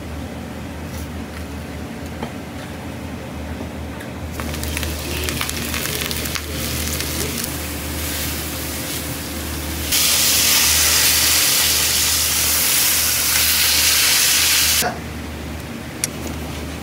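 Karaage (Japanese fried chicken) sizzling in hot oil during its first fry, over a steady low hum. About ten seconds in, a much louder hiss starts suddenly and cuts off about five seconds later.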